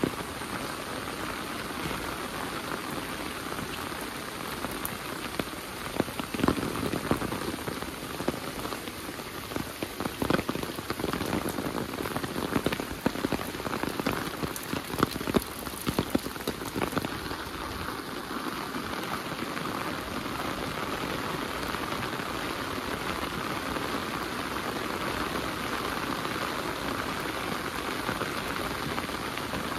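Heavy rain falling steadily. Many sharp, close drop hits sound through the first half, then the rain settles into a smoother, even hiss.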